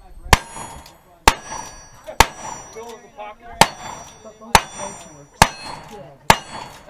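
Revolver shots fired in a steady string, seven of them about a second apart with a slightly longer pause near the middle. Each shot is followed by the high ring of a steel plate target being hit.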